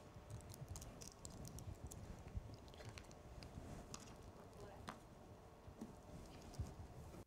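Faint scattered clicks and light rustling of small objects being handled on a table beside a metal communion tray. The sound cuts off suddenly at the end.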